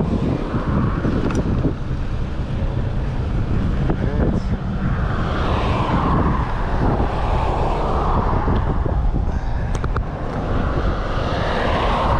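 Wind buffeting a bare action-camera microphone, its windscreen broken, while riding an e-bike, with cars passing on the road.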